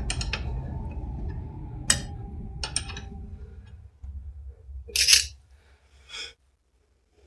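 Workshop handling noise while engine mount bolts go into a motorcycle frame: a low rumble with a few sharp metallic clicks, then a loud short scrape about five seconds in and a smaller one a second later.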